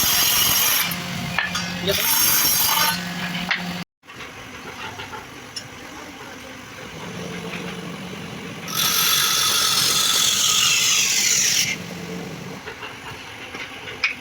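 Electric woodworking power tool cutting into wood in bursts: two short passes of about a second each at the start, then after an abrupt break a longer pass of about three seconds, with the motor's steady hum between passes.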